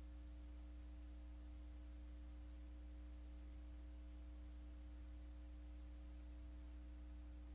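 Faint, steady electrical hum with a low drone and no other sound.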